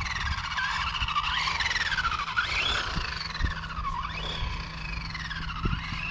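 Kyosho Lazer Alpha electric RC buggy driving on asphalt, its motor and gears whining up and down in pitch as the throttle is worked, with a few light knocks. The car runs noisily.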